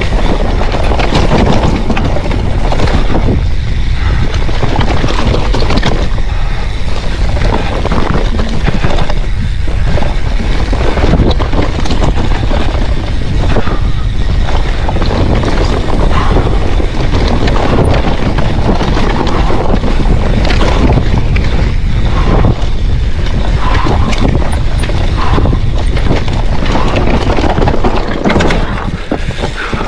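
Hardtail mountain bike running fast down a rough trail: wind rushing over the microphone with a constant clatter of the bike rattling and tyres hitting bumps.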